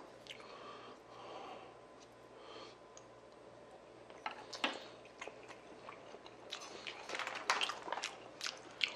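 Close-miked chewing of raw salmon slices: soft, wet mouth smacks and clicks, getting busier and louder in the second half.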